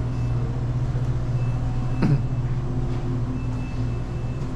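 Steady electrical hum of refrigerated display coolers and store equipment, with one brief knock about two seconds in.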